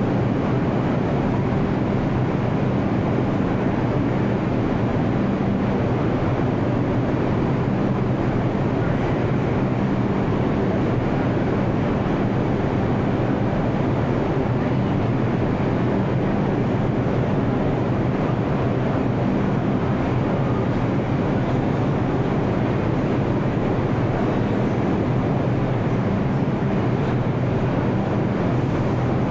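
New York City subway station ambience: a steady rumble with a low, even hum and no distinct events.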